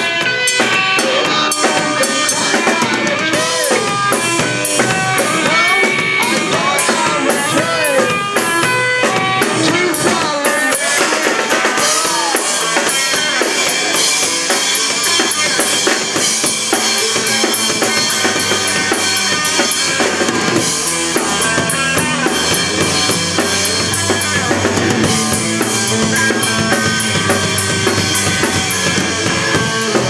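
Live rock band playing a song: drum kit with bass drum and snare, electric guitar and bass guitar.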